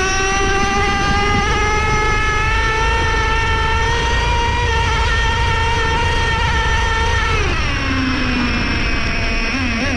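Traxxas Revo 3.3 RC truck's small nitro engine running at high revs, a high-pitched whine that holds and creeps up in pitch for about seven seconds. It then drops sharply as the throttle comes off, and the pitch rises and falls in short blips near the end.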